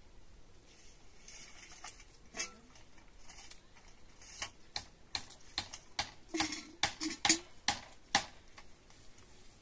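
Irregular sharp clicks and taps of hard objects. A few faint ones come first, then a quick run of about a dozen louder ones in the second half, stopping before the end.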